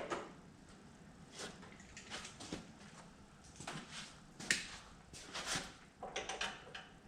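Hand wrench working very tight bolts loose: irregular short metallic scrapes and clicks, about eight spread over several seconds, the loudest about four and a half seconds in. The bolts are snug enough that a twist-off (snapped bolt) is feared.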